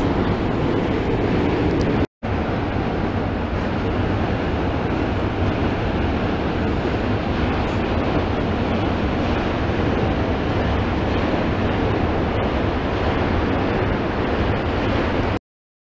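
Steady outdoor noise of wind on the microphone mixed with city traffic, with no distinct events. It drops out briefly about two seconds in and cuts off shortly before the end.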